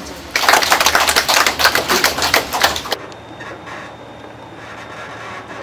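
A rapid, dense clatter of many camera shutters firing in bursts. It cuts off abruptly about three seconds in, leaving only a faint background.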